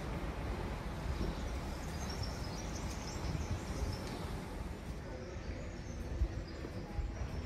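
City street ambience: a steady low rumble of the surroundings, with faint high chirps about two to four seconds in.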